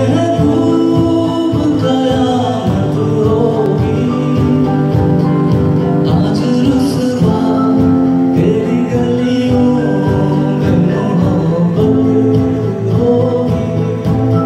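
Live acoustic band: a man singing long held notes over strummed acoustic guitars and keyboard.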